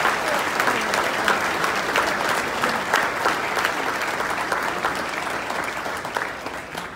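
Audience applauding: dense clapping that gradually thins and fades toward the end.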